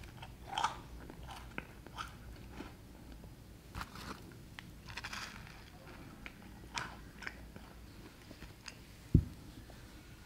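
A coffee bun with a crisp topping being bitten and chewed, with scattered crunches and crackles. A single sharp thump about nine seconds in.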